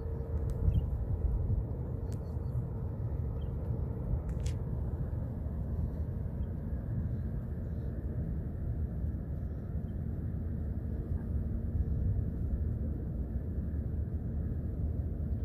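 Steady low rumble of outdoor ambience by open water, with a few faint clicks within the first five seconds.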